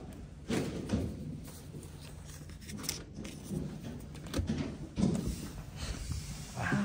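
Scattered clicks and knocks from a hotel room door as its metal lever handle is worked, the loudest about five seconds in, over a low steady hum.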